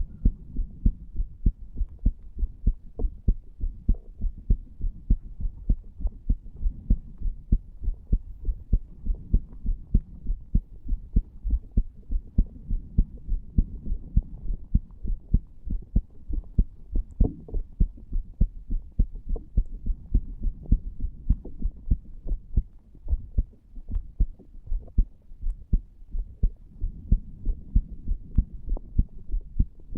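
A human heart beating, heard through the chest over the tricuspid valve area: a steady, even rhythm of short, dull low thuds.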